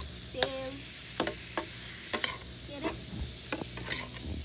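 Metal spatula scraping and clinking against a black wok while chicken pieces are stirred, over the steady sizzle of meat frying on a wood fire.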